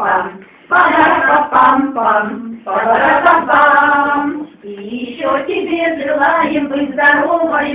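Women singing, with long held notes.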